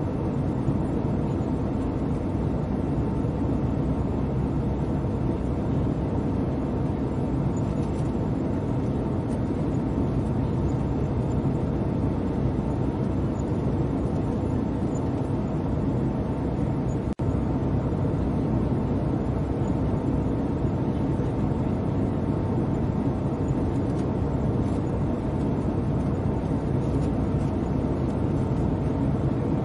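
Steady cabin noise of an airliner in flight: a low, even rush of engines and airflow with a faint steady whine above it. The sound cuts out for an instant about seventeen seconds in.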